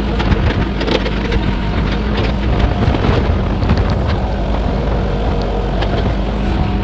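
Excavator's diesel engine running steadily, with scattered knocks and clanks.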